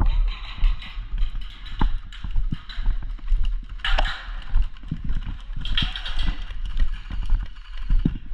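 Footsteps of someone walking at a steady pace, about two steps a second, with a louder rustling swish about four seconds in and again about six seconds in.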